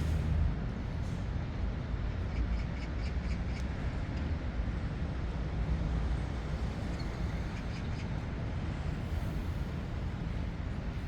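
Outdoor park ambience: a steady low rumble of distant traffic, with faint high bird chirps a couple of seconds in and again later.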